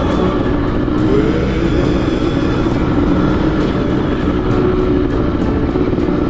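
Sherco X-Ride 290 two-stroke trail motorcycle engine running steadily while riding, its pitch rising briefly about a second in.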